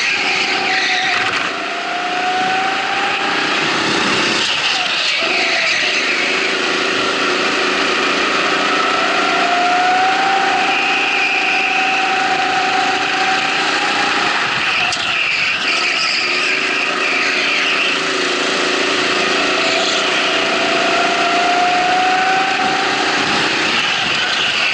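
Onboard sound of a racing go-kart's motor at speed, its pitch rising over a few seconds on each straight and dropping when it slows for the corners, three times over.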